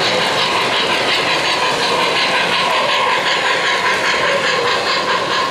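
O-gauge model steam locomotive and its boxcars running along three-rail FasTrack: a steady rolling and running noise with light, rhythmic clicking.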